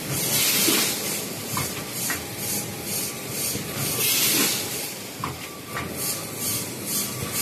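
Automatic quad-seal vertical form-fill-seal packaging machine running: a steady mechanical clatter with fast ticking, and long bursts of air hiss from its pneumatic cylinders about every four seconds, with a few short squeaks.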